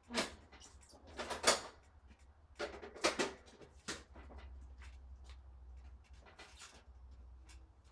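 Scattered knocks and clunks from a rider shifting on a lawn tractor's seat and climbing off, with the engine shut off. The loudest come about a quarter second in, at about a second and a half and at about three seconds, over a faint low hum.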